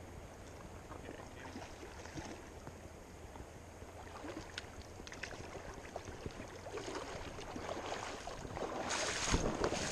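Shallow river water lapping and trickling at the gravel edge, heard close to the surface, with a few small ticks; it grows louder near the end.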